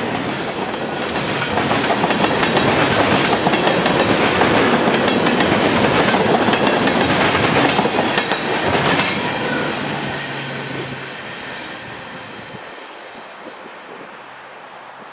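Freight train cars rolling past on the Florida East Coast Railway, wheels clicking over rail joints about every second and a half. After about nine seconds the sound fades away as the train recedes.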